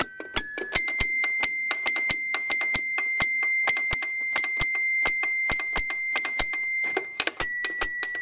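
Little Tikes toy piano being played: one high note struck over and over in quick succession, several times a second, its ringing carrying on between strikes. Near the end the player moves to a couple of other notes.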